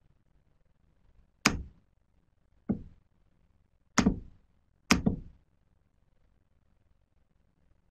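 Four sharp knocks, roughly a second apart, each dying away quickly.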